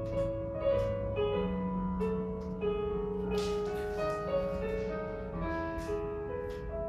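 Ballet class piano music playing slow, long-held notes and chords to accompany a grand plié and port de bras exercise at the barre.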